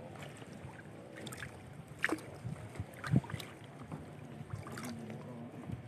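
Kayak paddle strokes in calm water: the blades dipping and dripping, with two sharper splashes about two and three seconds in.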